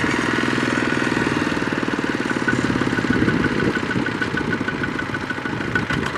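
Kubota ZT155 single-cylinder diesel engine of a two-wheel walking tractor chugging steadily under load as it hauls a trailer of rice sacks through deep mud.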